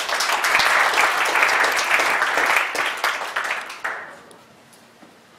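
Audience applauding. The clapping starts at once and fades out about four seconds in.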